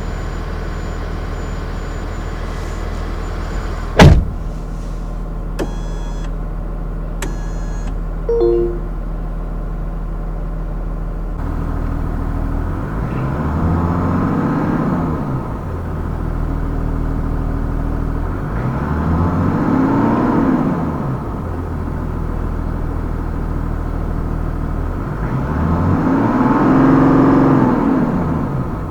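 Mazda CX-60's 3.3-litre inline-six diesel running at idle, with a sharp slam about four seconds in and a few short beeps just after. The engine is then revved up and let fall back three times, its pitch and loudness rising and dropping with each blip.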